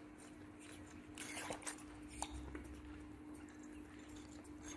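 Two baby monkeys sucking on milk bottles: faint suckling and a few small wet clicks about a second and two seconds in, over a steady low hum.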